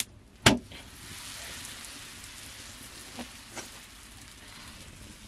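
A large sheet of flatbread dough slapped onto a hot iron griddle from a bread cushion with one sharp smack, then a steady sizzle as the dough starts to cook on the hot iron. Two faint clicks come a little past the middle.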